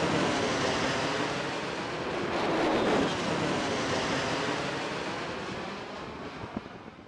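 Rushing roar of a jet aircraft passing, swelling about two to three seconds in and then fading out steadily.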